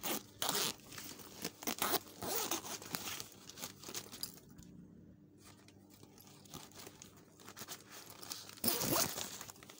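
Zipper on a backpack pocket being pulled along in several short runs, with the rustle of the bag's fabric being handled. There is a lull in the middle and a louder zip near the end.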